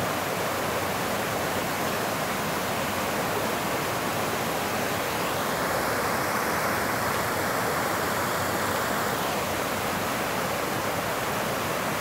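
Small waterfall rushing over river rocks: a steady, unbroken rush of water.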